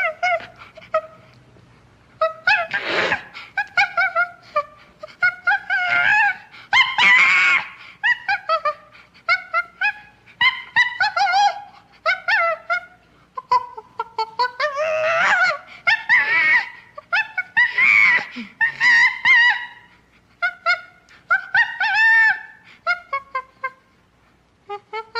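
Chimpanzee-style ape calls: a long run of short, high, pitched cries that swoop up and down, coming in quick strings with brief pauses.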